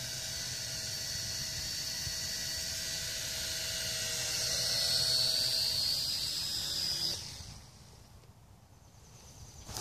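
Mould King Super S toy quadcopter's motors and propellers whining steadily, louder and a little higher about five seconds in, then cutting off suddenly about seven seconds in.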